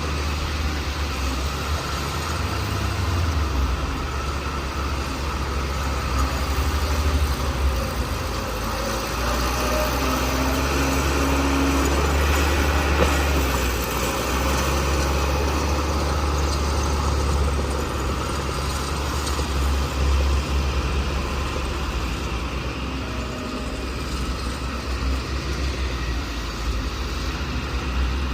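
Bulldozer diesel engine running steadily with a deep low rumble, working under load as it pushes dirt.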